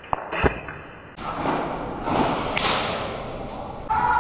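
Two sharp thuds close together, then a stretch of rustling, shuffling noise; a steady two-pitch tone comes in near the end.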